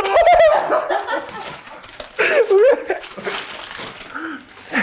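Human voices making short loud exclamations with sliding pitch, near the start and again about two seconds in, without clear words.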